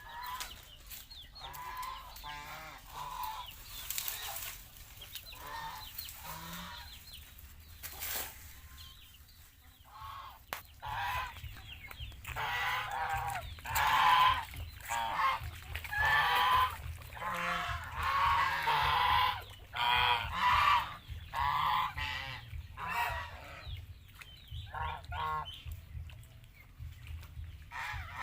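Domestic geese honking, many calls overlapping, sparse at first and growing into a loud, busy chorus about halfway through.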